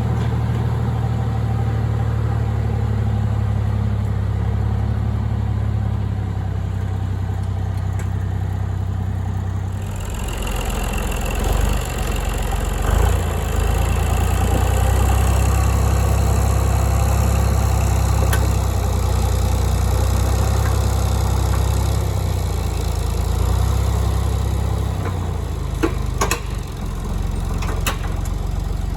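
A vehicle engine running steadily. Its sound changes about a third of the way in, and a few sharp clicks come near the end.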